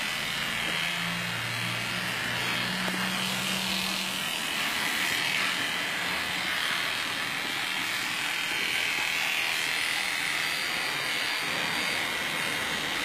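Electric dog-grooming clipper running steadily as it shaves through a dog's heavily matted coat.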